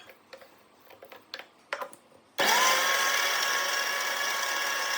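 A few light clicks and knocks, then about two and a half seconds in an electric mixer grinder starts abruptly and runs steadily with a high whine, coarse-grinding fried onion and spice masala.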